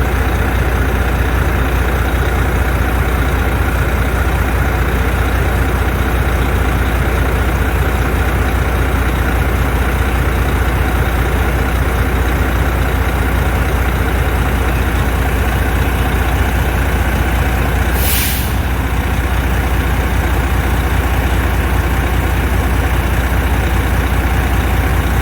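Volvo FH13's 13-litre inline-six diesel idling steadily while it warms up, with a brief hiss of air about three-quarters of the way through.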